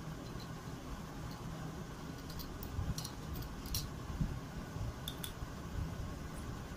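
Small, sharp plastic clicks and taps, a few spread irregularly, from jumper wires being handled and pushed onto header pins, over a steady low room hum.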